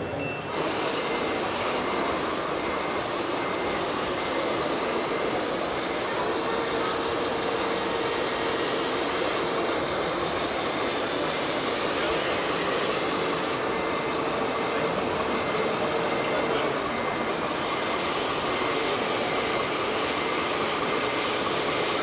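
Steady mechanical running noise with a faint whine from radio-controlled model trucks and construction machines with electric drives and hydraulics.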